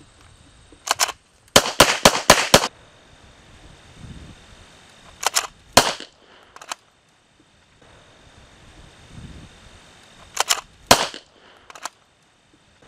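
Pistol making sharp cracks in quick clusters: a pair about a second in, about five in rapid succession around two seconds, three near six seconds, and another short burst near eleven seconds.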